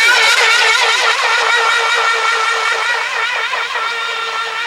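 Electric brushless outrunner motor and propeller of an RC catamaran running at high speed: a steady high whine that wavers slightly, with a fast, even pulsing. It slowly fades toward the end.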